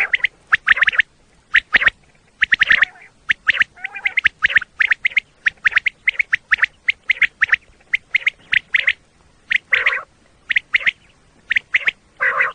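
Common quail calling: a fast series of short, sharp notes in little groups, with a few lower, harsher notes mixed in now and then.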